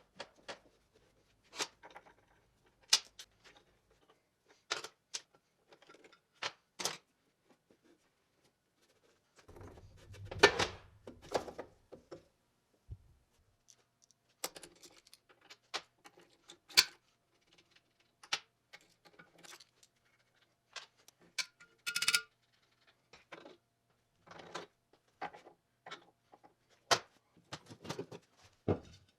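Scattered metal clinks, taps and knocks of hand tools working on an old cast-iron engine's parts during disassembly, irregular and a few seconds apart. About ten seconds in comes a longer, louder scraping clatter.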